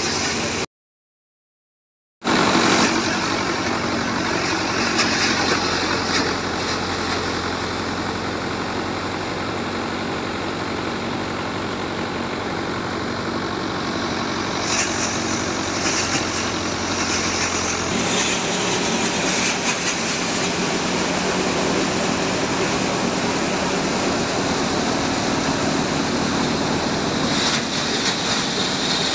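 Tractor-driven paddy thresher running steadily while threshing rice, the tractor engine and the thresher drum making a continuous mechanical hum. The sound drops out completely for about a second and a half near the start.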